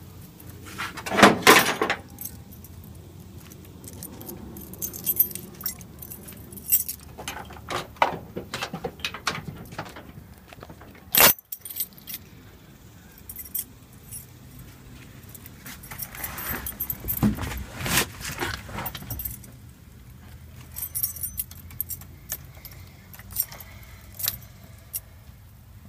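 Keys jingling and handling clatter inside a pickup cab, in several short flurries, with one sharp knock about eleven seconds in.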